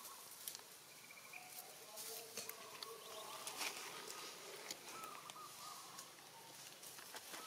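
Faint outdoor ambience: scattered crackles of dry leaf litter, with faint wavering animal calls in the middle of the stretch.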